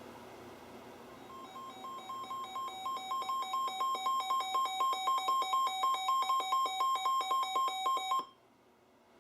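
Weather alert radio alarm: a rapid beeping that alternates between a high and a slightly lower tone, getting louder over its first couple of seconds and then cutting off suddenly after about seven seconds. It marks an incoming NOAA Weather Radio warning.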